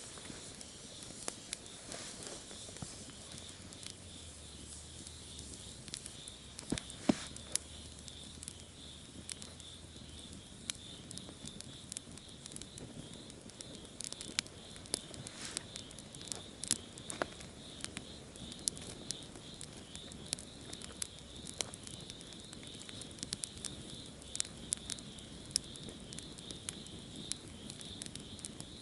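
Campfire crackling, with irregular sharp pops and snaps over a steady high hiss.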